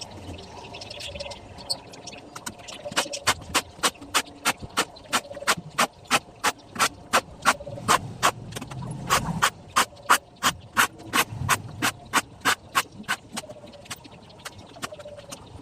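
A steady series of sharp mechanical clicks, about three a second, starting a few seconds in and stopping near the end.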